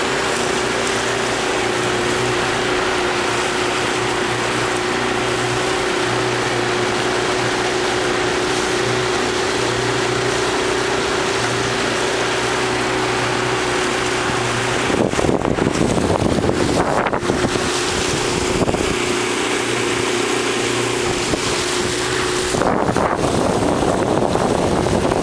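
Boat motor running steadily with a constant hum, and wind buffeting the microphone, loudest in two gusts midway and near the end.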